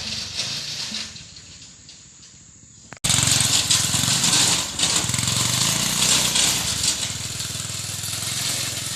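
Small engine of a motorised oil-palm fruit carrier (grakula) running, with a metallic rattle. It fades for a couple of seconds, then comes back suddenly and louder about three seconds in.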